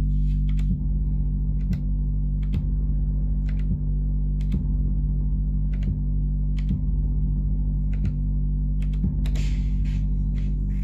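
Elektron Analog Rytm analog drum machine sounding a loud, steady low drone made of several held tones, cut through by sharp clicks about once a second. A short burst of hiss comes in near the end.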